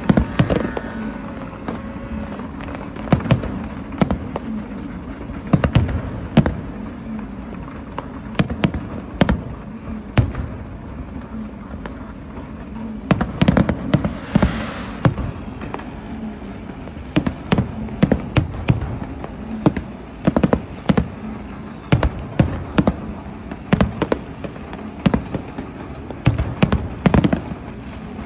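Fireworks going off in an irregular series of sharp bangs, sometimes several in quick succession, over a steady background din.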